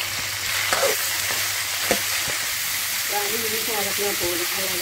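Sliced onions, tomatoes, garlic and whole spices sizzling in hot oil in a kadai as they are stirred with a steel ladle, with a few sharp knocks of the ladle against the pan.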